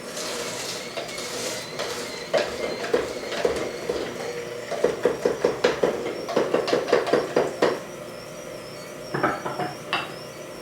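Kitchen clatter of utensils and dishes: a brief rustle, then a quick run of sharp knocks at about five a second, and a few more clatters near the end.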